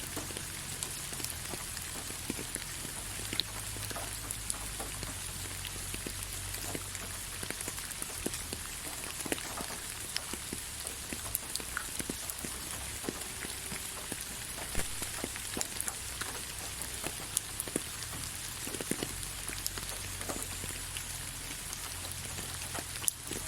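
Gentle, steady rain: a constant hiss with many scattered drops ticking throughout.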